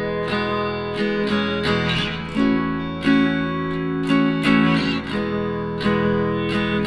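Background music of strummed acoustic guitar chords, with strokes repeating at a steady, even pace.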